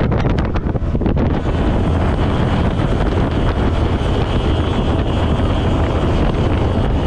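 Wind buffeting the action camera's microphone on a speedboat under way, over the boat's engine and rushing water. The buffeting is choppy for the first second or so, then settles into a steady rush.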